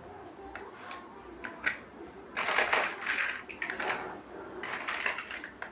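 Plastic building bricks clattering and clicking as they are handled and pressed together: a sharp click, then two spells of dense rattling.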